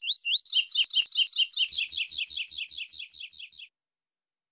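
Double-collared seedeater (coleiro) singing: a few separate rising whistled notes, then a fast run of about six notes a second that fades and stops about three and a half seconds in.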